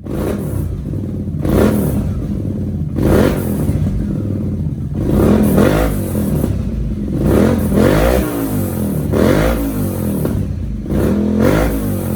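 Shop space heater running loudly: a steady low mechanical hum with a pitched swell that rises and falls every second or two.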